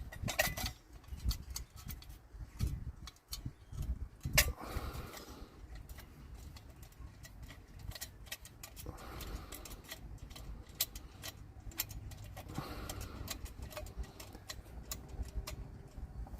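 Scattered small metallic clicks and taps as bolts are fed by hand into a steel diff guard plate, with a few louder knocks.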